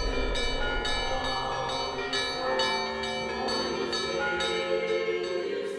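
Russian Orthodox church bells ringing: several bells of different pitches struck in quick succession, about three strikes a second, their tones ringing on over one another.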